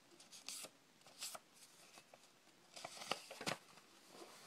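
A square sheet of origami paper being folded and creased by hand: faint, scattered crinkles and rustles, the loudest about three seconds in.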